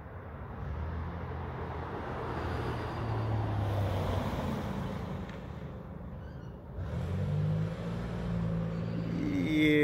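Cars passing on a street. Tyre and engine noise swells to a peak about four seconds in and fades, then a second vehicle's low engine hum comes up about seven seconds in.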